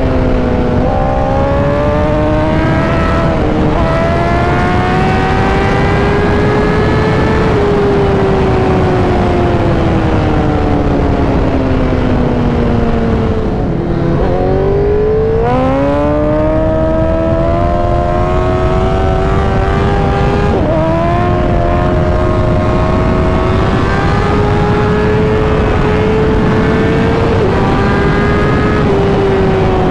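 Sportbike engine heard from the rider's seat. Its pitch climbs through quick upshifts in the first few seconds, sinks slowly as the bike eases off, then climbs sharply again about halfway through and holds fairly steady before falling near the end. Wind rush runs under it throughout.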